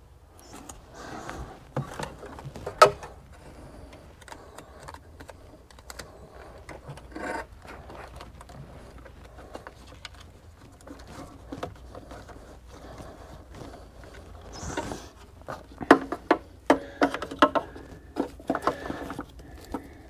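Hands working a wiring harness and its plastic wire ties and clips against a car's interior body panel: rustling and scraping with scattered sharp plastic clicks, one loud click about three seconds in and a quick run of clicks near the end.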